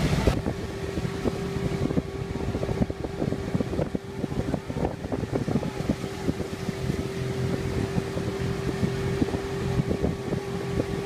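Motor launch's outboard engine running at a steady cruising speed, a constant hum, with wind buffeting and crackling on the microphone.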